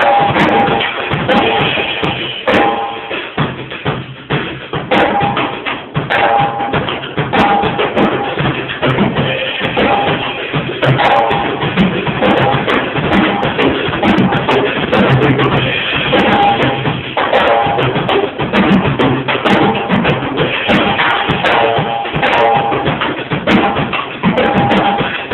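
Drum kit being played in a continuous rhythm, with regular strokes throughout.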